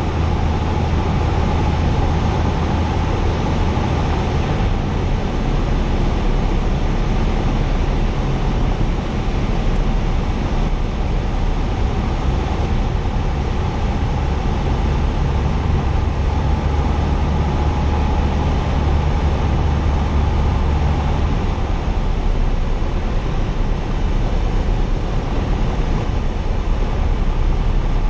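Cessna 172's propeller and piston engine droning steadily, heard from inside the cabin during a descent to land. Its low note shifts about four seconds in and again about twenty-one seconds in.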